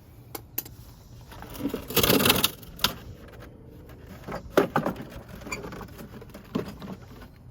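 Scattered clicks and knocks of tools being handled, with a louder half-second rattle about two seconds in.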